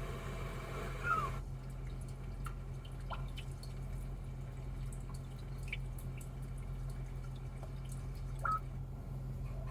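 Recorded ambient sound of water dripping, sparse separate drops with an occasional plink, played through a car's infotainment speakers as a relaxation soundscape over a steady low hum. A fuller ambient sound cuts off about one and a half seconds in, as if the track is changed.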